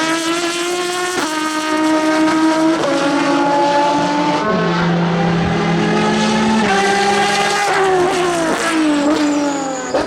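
Aston Martin V12 Vantage GT3's V12 engine with an open exhaust, pulling hard under acceleration: the pitch climbs and drops sharply at each gear change, several times. Near the end it falls in steps as the car shifts down.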